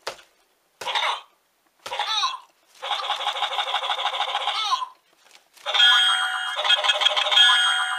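Electronic sound effects from a motion-activated toy boxing glove, played through its small tinny speaker: three short sound bursts with falling pitch as the glove is swung, then a longer clip, and from about halfway on the sound is set off again and again in quick succession, cutting itself short in a stutter.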